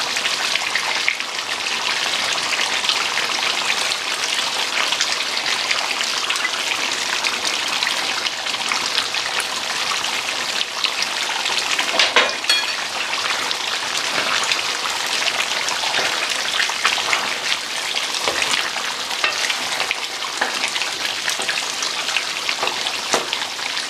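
Duck curry cooking in a pan, a steady bubbling sizzle made of many fine crackles, with one sharper click about halfway through. Near the end a wooden spoon stirs through it.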